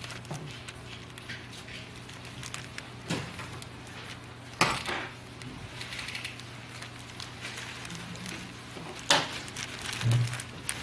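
Hands handling kite parts and materials: scattered rustles and a few sharp clicks, the loudest about four and a half and nine seconds in, with a dull thump near the end, over a steady low room hum.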